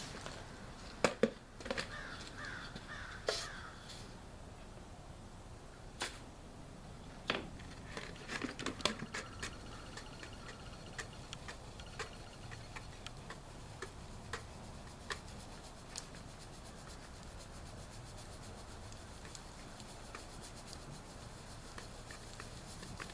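Scattered light clicks and knocks of things being handled, with a quick run of four short calls about two seconds in; no motor is running.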